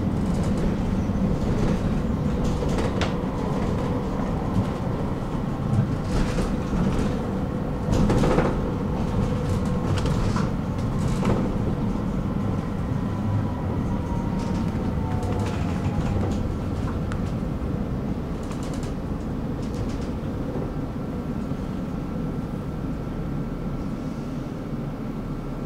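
Tram running on its rails: a steady rumble of wheels on track with scattered clicks and knocks, the loudest about eight seconds in. A faint whine falls in pitch partway through, and the sound eases slightly near the end.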